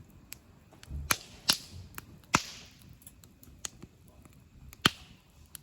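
Wood campfire crackling, with several sharp pops that each trail off in a brief hiss: one about a second and a half in, one about two and a half seconds in, and the loudest about five seconds in.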